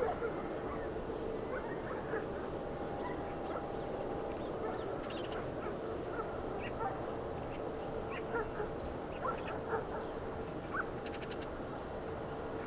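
Steady background hum with a faint held tone, and many short high chirps scattered over it.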